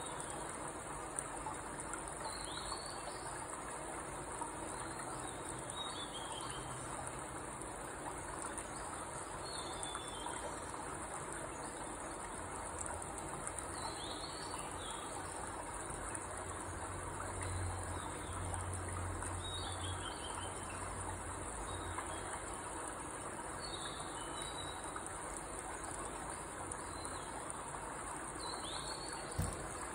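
Steady high-pitched trill of insects, with a bird giving short falling chirps every few seconds. A low hum swells briefly in the middle, and a single knock sounds near the end.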